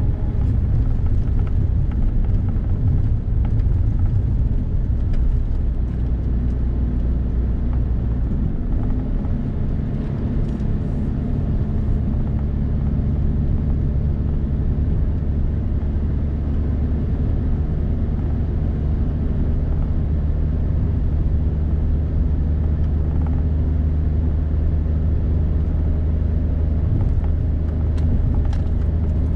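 Suzuki Hustler kei car heard from inside the cabin while driving at steady speed: a continuous drone of engine and tyre noise. The engine note shifts slightly about nine seconds in.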